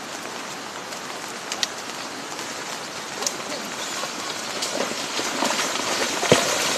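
Heavy rain falling in a steady hiss, with a few sharp knocks scattered through it, growing louder toward the end.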